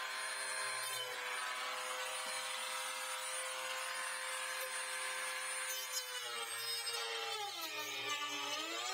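Small high-speed power tool motor running steadily while cutting through a plastic housing. About six seconds in, its pitch sags as it bites into the plastic, then climbs back near the end.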